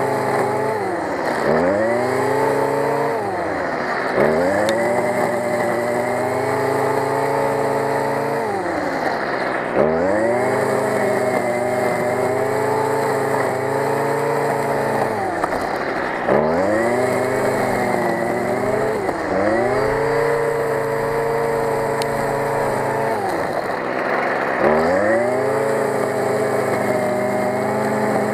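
Stihl FS 55 grass cutter's small two-stroke engine running at high revs while its nylon-line trimmer head cuts tall grass. The engine speed dips and climbs back about six times.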